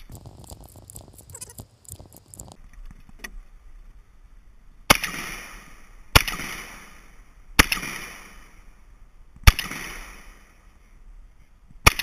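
Five shotgun shots fired at an irregular pace, one to two and a half seconds apart, each followed by a ringing echo that dies away. Light clicking in the first few seconds before the first shot.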